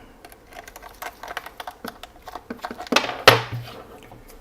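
Small clicks and taps of screws and plastic housing parts being handled during reassembly of a Yongnuo YN685 speedlight flash, with one louder clack about three seconds in.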